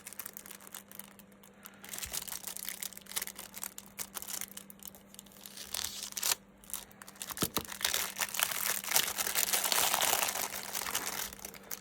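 Packaging being handled and opened: crinkling, crackling and tearing of wrapping material, becoming heavier and louder in the second half.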